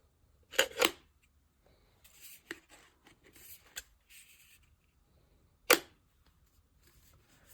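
Hair dryer's magnetic concentrator nozzle being pulled off and snapped back on: a sharp double click about half a second in, light handling rustle, then a single loud click past the middle.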